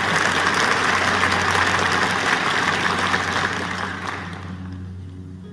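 Audience applauding, a dense crackling clapping that dies away about four seconds in, over a steady low hum.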